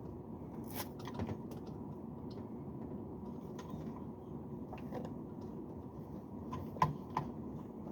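Scattered light clicks and taps of hand work on metal fittings, the loudest pair of clicks near the end, over a steady low background hum.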